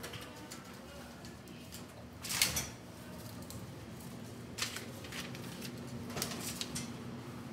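A steady low hum with several brief noisy handling sounds over it, the loudest about two and a half seconds in, and shorter ones near the middle and end.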